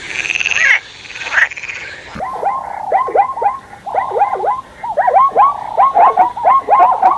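Animal calls: a buzzing trill in the first second, then, after an abrupt change about two seconds in, a rapid series of short calls that each slide down in pitch, many overlapping.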